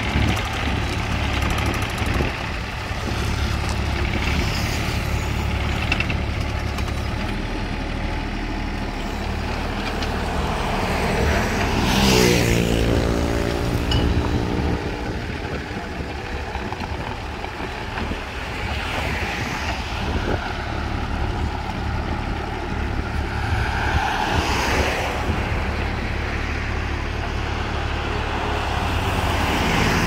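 Small diesel engine of a Kobelco SK024 mini excavator running steadily as the machine moves along the roadside. About twelve seconds in a road vehicle passes close by, its pitch falling as it goes past, and another passes near the end.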